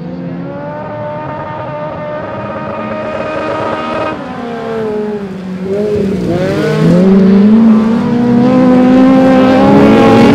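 Several dirt-track stock cars racing at full throttle: one engine note climbs steadily for about four seconds, then drops, and several engine notes overlap, rising and falling through gear changes as the pack comes closer and gets louder.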